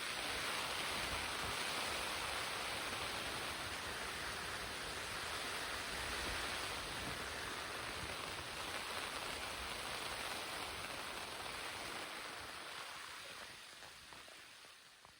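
Steady rushing outdoor noise with no distinct events, fading out near the end.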